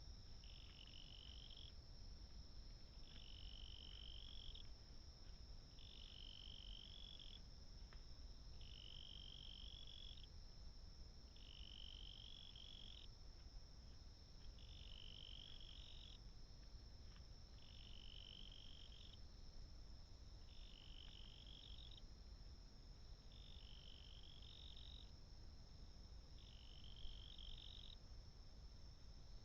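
Faint, evenly repeated trilling calls of a small animal, each about a second and a half long and coming roughly every two and a half seconds, over a steady high-pitched hiss.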